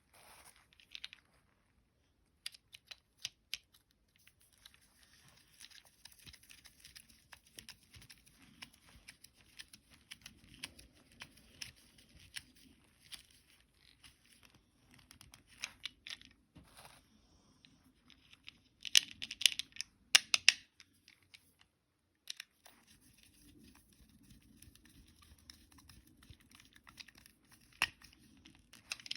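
Hands handling and working on small plastic toy parts: scattered clicks, taps and crinkling, with a louder quick flurry of clicks about two-thirds of the way through.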